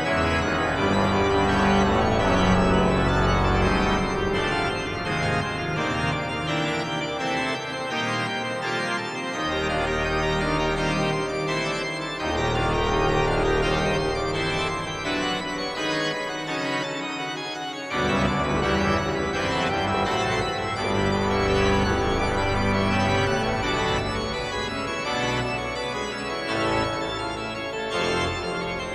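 Organ playing a loud, full-textured passage of sustained chords and moving lines. The deep pedal bass drops away for a few seconds at a time and comes back strongly about eighteen seconds in.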